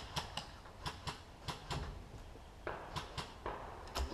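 Irregular light clicks and knocks, about a dozen spread unevenly over a few seconds, over a low rumble.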